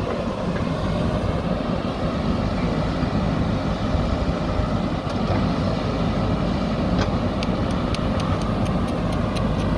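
JCB 3DX backhoe loader's diesel engine running steadily. Near the end comes a quick run of light clicks, about four a second.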